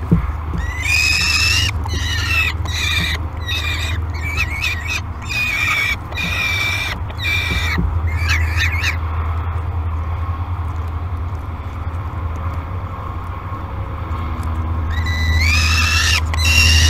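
Peregrine falcon calling: a rapid series of drawn-out, pitched calls for about eight seconds, a pause, then the calls start again near the end. A steady low hum runs underneath.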